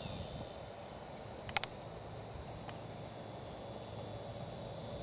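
Steady high-pitched drone of insects in the trees around the green, with a single sharp click about a second and a half in.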